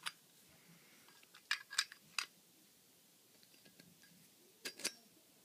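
A few small, sharp clicks and taps from handling a Zippo lighter and its packaging: three about a second and a half to two seconds in, and two more close together near the end.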